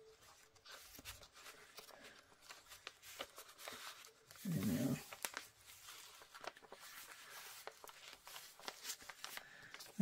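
Soft rustling and light clicks of paper and card as a handmade junk journal is handled: loose cards pushed back into a page pocket and a page turned. About halfway through comes one brief low voice-like sound.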